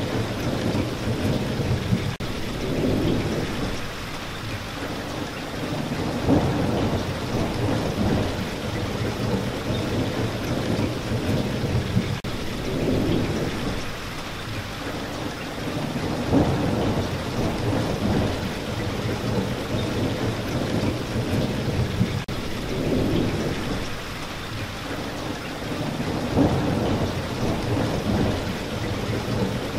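Steady rain with low rumbles of thunder swelling up several times. The same stretch repeats about every ten seconds.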